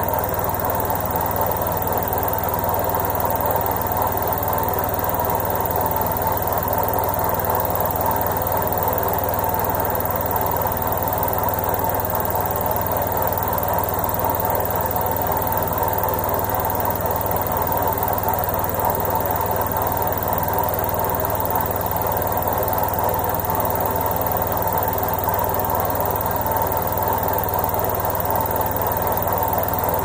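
Indesit front-loading washing machine running its final spin and drain: an even mechanical hum with a steady whine, holding at one level throughout.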